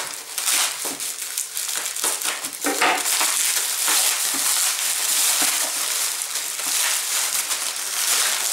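Plastic wrapping crinkling and rustling as a wrapped parcel is opened by hand: scattered rustles at first, then continuous dense crinkling from about three seconds in.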